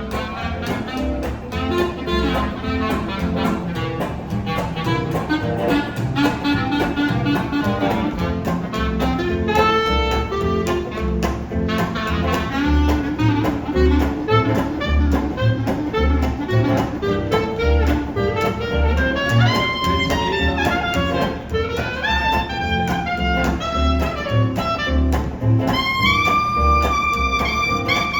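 Live jazz band playing: a plucked bass line under a horn melody that climbs and ends on a long held note near the end.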